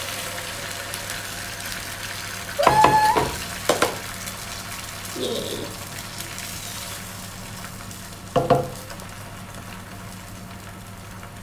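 Beaten egg mixture sizzling in hot oil in an electric grill pan just after being poured in, the hiss strongest at first and easing over the next few seconds. A short ringing clink about three seconds in and a few knocks later come from utensils.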